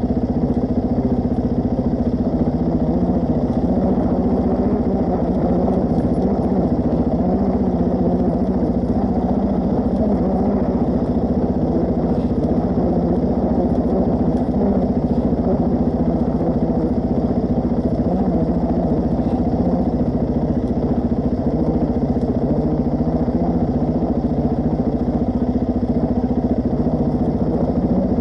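Suzuki DR-Z400S single-cylinder four-stroke engine running at a steady pitch while the motorcycle is ridden.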